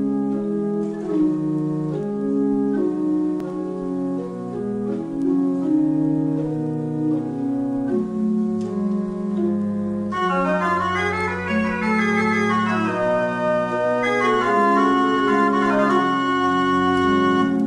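Organ music of slow, held chords that change every second or so, with a higher line of quicker notes coming in about ten seconds in.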